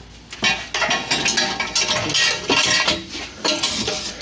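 Metal exhaust headers clanking and scraping against the engine and engine bay as they are worked into place for a test fit: a run of irregular metallic knocks and clinks with a short ring after each.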